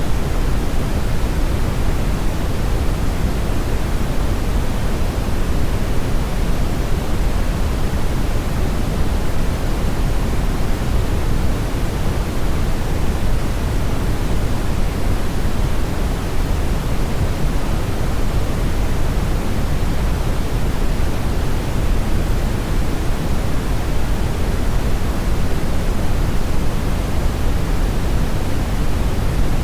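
Steady, loud static-like noise, heaviest in the low end, with no change in level.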